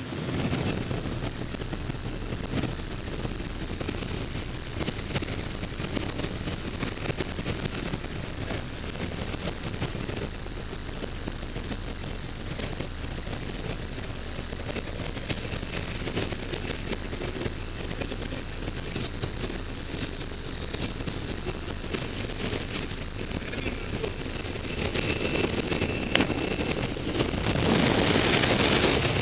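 Steady drone of a jump plane's engine and propeller inside the cabin, then wind rushing louder near the end as the skydiver leaves the plane into freefall.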